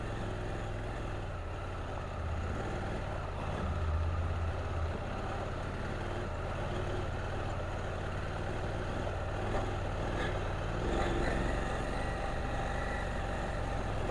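KTM 790 Adventure's parallel-twin engine running at low revs on rough off-road ground, with a few brief knocks about ten seconds in.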